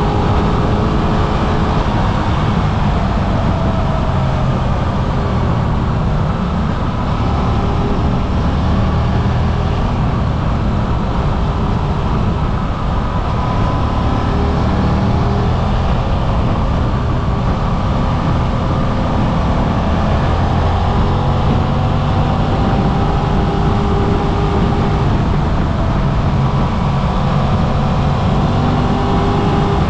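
Suzuki V-Strom 800RE's 776 cc parallel-twin engine running on the move, its note rising and falling several times with the throttle, over a heavy rush of wind and road noise.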